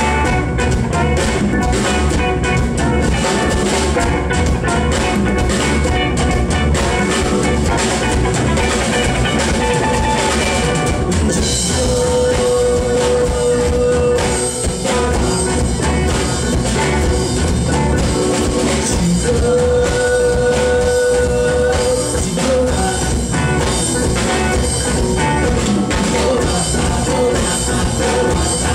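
Loud music with drums keeping a steady beat; a held note sounds twice in the second half.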